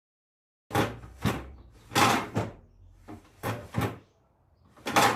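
Plastic compartment of a new refrigerator being opened and shut several times, giving about four pairs of sharp clacks, a noise its owner doesn't like.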